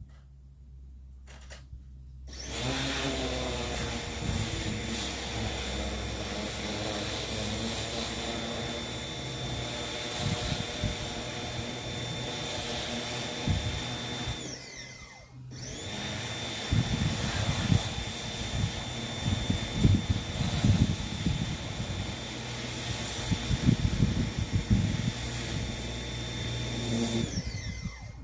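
Pressure washer running, its motor spinning up with a steady high whine, cutting out briefly about halfway when the trigger is released, then starting again. In the second run the jet spraying a flywire screen door and its grille adds irregular splashy bursts.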